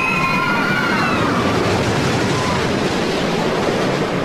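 A roller coaster train running along its track with a steady rushing rumble. Riders scream briefly in the first second or so.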